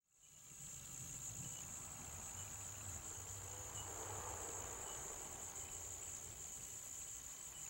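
A chorus of insects in the woods: a steady, high-pitched drone that fades in at the start.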